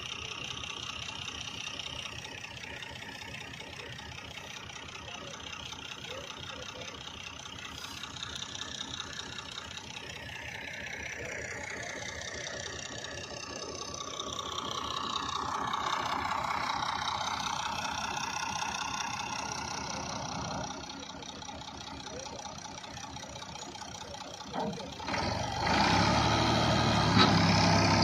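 A fainter steady hum, then about 25 seconds in a Massey Ferguson 350 tractor's diesel engine comes in loud, running as it hauls a trolley heaped with straw.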